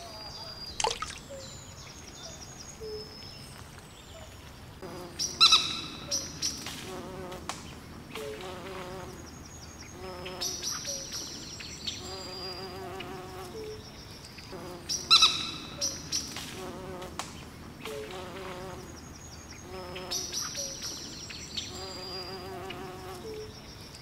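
Outdoor nature ambience of small bird chirps and whistles over the buzz of flies or other insects. The same few seconds of calls and buzzing come round again about every ten seconds, like a repeating loop.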